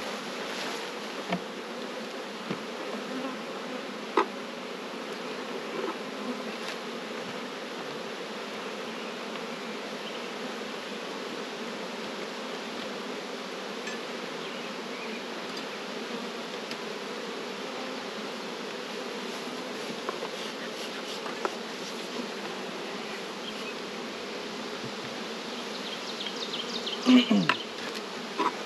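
Honey bees buzzing in a steady, dense hum around an opened hive. Scattered light knocks come from the wooden hive boxes and frames being handled, with a louder run of knocks near the end.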